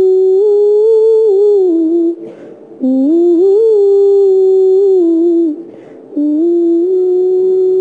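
A woman humming a slow melody in long held notes, in phrases of about three seconds with a quick breath between them. A faint steady high whine sits above it.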